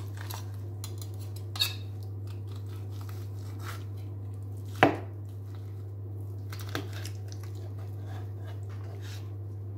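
Carving knife and carving fork working through a roast chicken on a wooden board: faint cutting and scraping with two sharp knocks, the louder about five seconds in, over a steady low hum.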